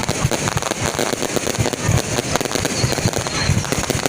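Fireworks going off in a dense, unbroken barrage of many bangs in quick succession.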